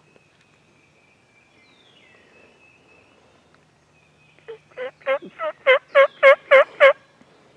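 A turkey yelping: a run of about ten evenly spaced yelps that starts about four and a half seconds in and grows steadily louder. Fainter calls of other birds come before it.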